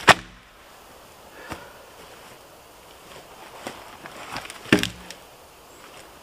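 A thin dead tree trunk, pushed over by hand, crashes onto the forest floor with one sharp, loud crack right at the start. Footsteps and scattered knocks follow, and near the end there is a second loud wooden knock as the trunk drops against a fallen log.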